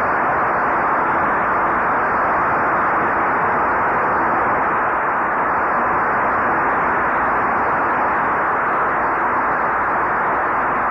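Large audience applauding steadily, heard through an old, muffled tape recording.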